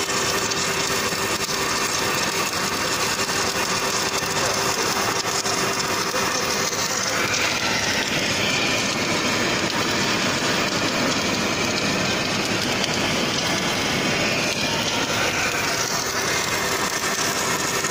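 Automatic longitudinal seam welding machine at work, its arc welding torch running along the seam with a steady hiss and hum. A faint steady tone drops out about seven seconds in.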